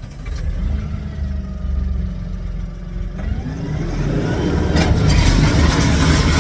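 Tractor engine running, then revving up about three seconds in. Near the end it grows louder with the clatter of an old John Deere square baler set going again on a newly fitted shear pin.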